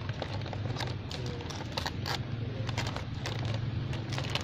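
Crinkling and crackling of a plastic snack bag being handled by macaques: irregular sharp clicks over a steady low hum.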